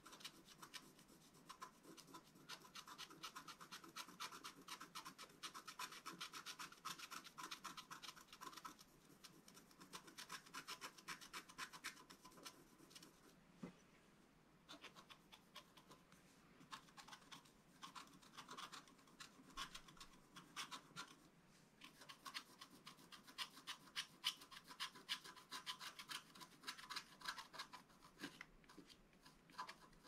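Faint rapid scratching of a wooden stylus etching short strokes into the black wax coating of a scratch-art sheet, pausing briefly twice.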